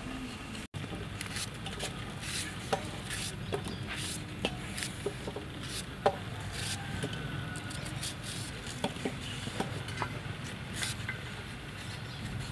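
Knife slicing crisp green vegetable stems held in the hand, with the cut pieces dropping into a stainless steel bowl as scattered light clicks and short ringing taps, over a steady low background noise.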